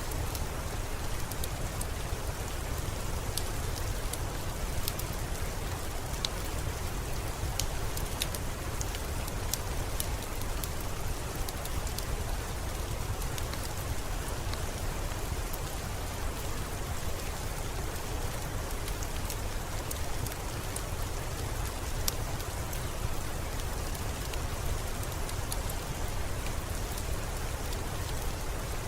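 Steady, even rain, with scattered sharp crackles of a wood fire burning.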